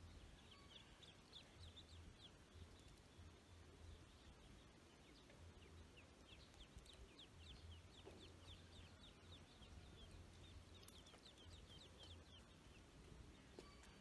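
Ducklings peeping faintly: quick runs of short high cheeps in two spells, the second longer, over a steady low hum.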